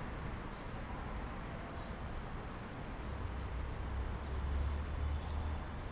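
Outdoor background noise with a few faint, short high chirps, and a low rumble that swells about three seconds in and fades just before the end. No siren is sounding.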